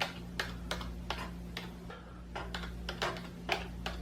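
Keys of a Razer Cynosa V2 membrane gaming keyboard being typed on: irregular keystroke clicks, about three a second.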